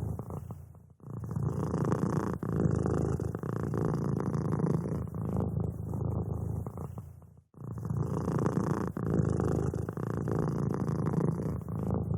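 Domestic cat purring steadily and close up, with brief pauses about a second in and again about seven and a half seconds in.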